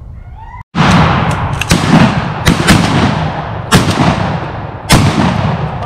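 Duck hunters' shotguns firing in a rapid volley, about six loud shots in under five seconds, some only a fraction of a second apart, so more than one gun is firing. Each shot rings out in a long echo. The shooting starts suddenly under a second in.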